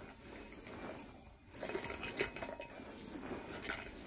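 Small terracotta flower pots being shuffled upside down across a carpet: scraping and rubbing with a few light clinks and knocks, the sharpest a little over two seconds in.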